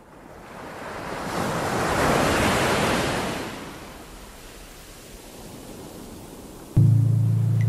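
Ocean surf: a wave swells up and washes in, then falls back to a steady hiss of sea noise. Near the end, music cuts in suddenly with sustained low notes.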